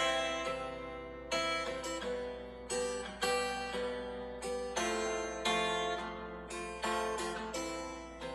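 Background instrumental music: plucked-string notes, guitar- or harpsichord-like, each struck sharply and fading, in a slow, even pattern.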